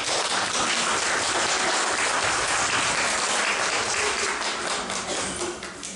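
Audience applauding, a dense clatter of many hands that starts abruptly and dies away near the end.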